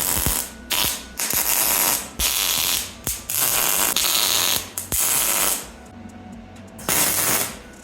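Welding arc crackling in a run of short tack welds on sheet steel, each burst about half a second to a second long with brief pauses between. A quieter gap comes about two-thirds of the way in, then one last tack near the end.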